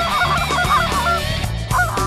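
A flock of geese honking: a rapid run of overlapping honks for the first second and a half, then another honk near the end, over background guitar music.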